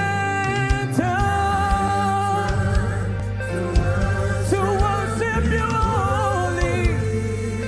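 Worship song: a voice sings long, sliding notes over a backing band with a steady low bass and regular drum strikes.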